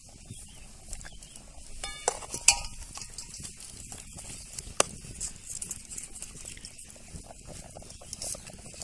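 Fish curry bubbling at the boil in an aluminium pot, with a steel ladle stirring and knocking sharply against the pot a few times.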